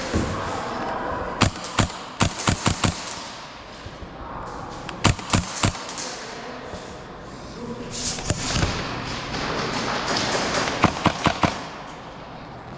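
Airsoft guns firing in three short bursts of sharp cracks, the first of about seven shots, then two of about four, over steady background noise.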